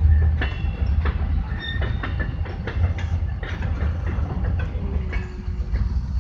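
Long CSX freight train rolling past: rail cars rumbling steadily, with the clickety-clack of wheels over rail joints and a few brief, faint high squeals.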